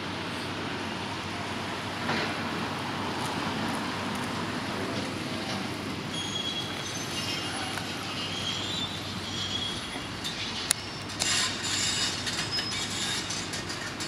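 Construction-site machinery running with a steady low rumble, and high metallic squealing in the middle, followed by a sharp clank and a louder burst of scraping and clatter.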